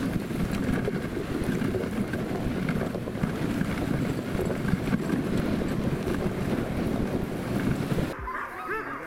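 Dog sled running over a packed-snow trail behind a team of Alaskan huskies: a steady rush of runner noise and wind on the microphone. It cuts off sharply near the end, and a group of dogs barks repeatedly in the distance.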